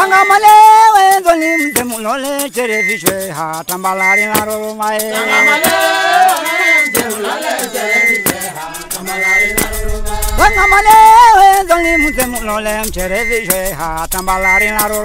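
A group of men and women singing a traditional folk song together, with a shaken rattle keeping time.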